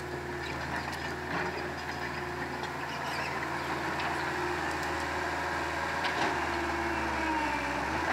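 CAT hydraulic excavator's diesel engine running steadily, with a higher whine that wavers in pitch near the end.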